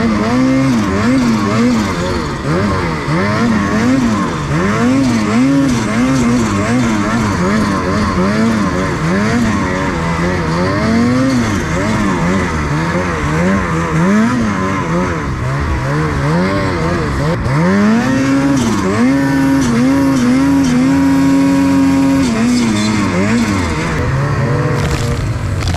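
Snowmobile engine under hard, changing throttle: the revs climb and fall again every second or two, then hold high and steady for a few seconds before dropping back to a low run near the end.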